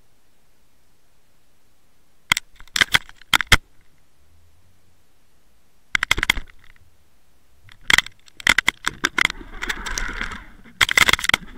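Underwater trolling rig with a dentex on the line: sharp clicking and rattling knocks in four clusters, heard through the camera housing, as the hooked fish tugs the line. There is a stretch of hissing water noise near the end.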